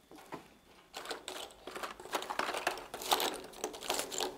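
Rustling and light clicking of paper and small objects being handled on a desk: a string of short, irregular taps and crinkles.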